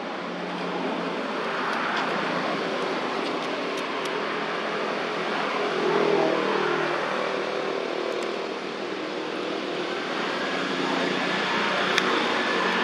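A motor vehicle's engine running as it passes nearby, swelling to its loudest about halfway through and easing before rising again, over a steady outdoor hiss.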